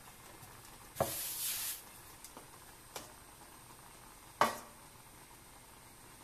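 A dark metal cake pan set down on a wooden pastry board with one sharp knock about four and a half seconds in, the loudest sound. Lighter clicks and a short hiss come about a second in, and another small click about three seconds in.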